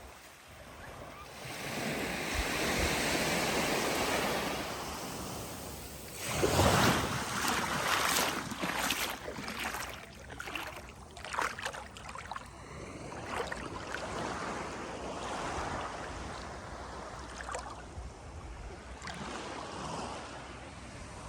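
Sea waves breaking on a beach and washing in. One swell builds a couple of seconds in, the loudest break comes about six and a half seconds in with several smaller crashes after it, then a steadier wash.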